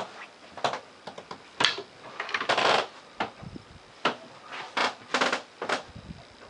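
An irregular series of sharp clicks, knocks and short rustles, about ten in a few seconds, as a wooden cabin door with a metal knob is unlatched and opened.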